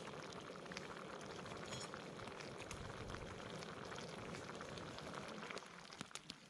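Food cooking in hot cookware over a camp stove: a steady sizzling, bubbling hiss dotted with small pops and crackles, easing off near the end, followed by a few sharp clicks.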